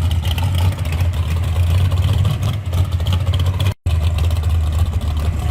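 A car engine running steadily with a deep, even drone. The sound drops out completely for a split second a little under four seconds in.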